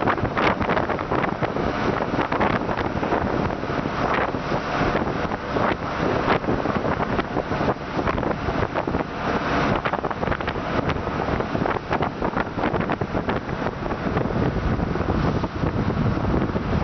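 A boat under way on open water: a steady rush of wind and water, with heavy wind buffeting on the microphone.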